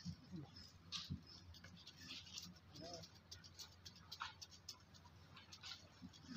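Quiet scene of resting, grooming macaques: faint scattered clicks and scratches, with a brief soft call about three seconds in.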